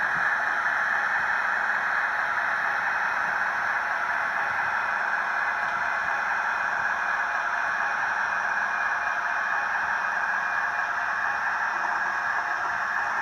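Model railway locomotive and wagons running on the track: a steady, even whirr of motor and wheels on the rails.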